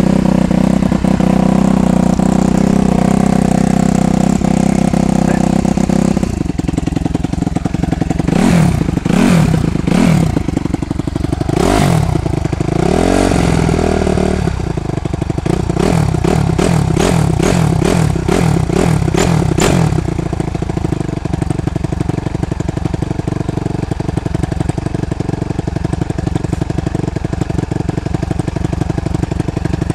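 Suzuki RM-Z250 four-stroke single-cylinder motocross engine with a Pro Circuit exhaust, running on its stand. It idles steadily, then the throttle is opened in several rising and falling revs, then blipped quickly many times in a row, and it settles back to a steady idle for the last ten seconds.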